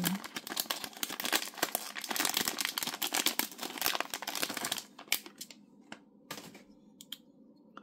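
Plastic wrapping crinkling and tearing as a boxed vinyl figure is unwrapped by hand. It is dense for about the first five seconds, then only a few scattered crackles and clicks.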